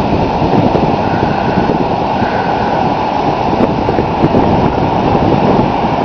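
Ocean surf: waves of about four feet breaking in a steady wash, with wind on the microphone.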